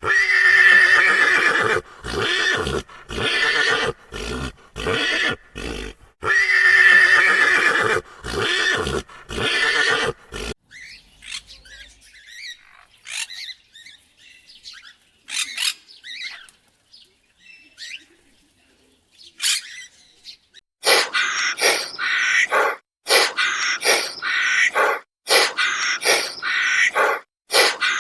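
A horse whinnying, with two long whinnies and shorter calls between them. Fainter chirps follow, and near the end comes a fast run of short, repeated animal calls.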